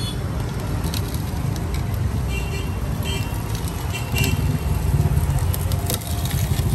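Jeeva mini electric sugarcane juicer running, its rollers crushing a sugarcane stalk as it is fed in by hand. It makes a steady low mechanical hum with a pulsing beat that grows stronger about four seconds in.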